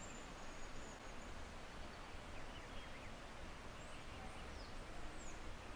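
Faint outdoor ambience: a steady hiss with a few short bird chirps, a handful of quick high whistled glides coming in the second half.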